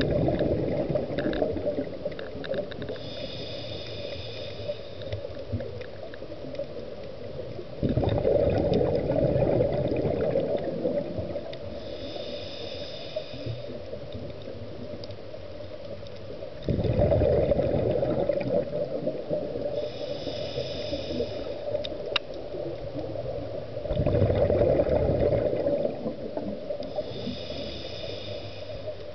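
Scuba diver breathing through a regulator underwater: slow breaths about every eight seconds, each a loud burble of exhaled bubbles lasting two to three seconds, with a quieter hissing inhale through the demand valve, carrying a faint whistle, a few seconds after each.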